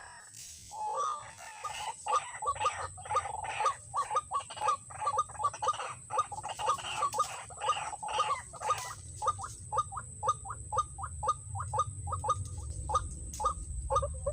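White-breasted waterhen (ruak-ruak) calling: a long run of harsh repeated notes, about three or four a second, quickening and becoming more clipped past the halfway mark.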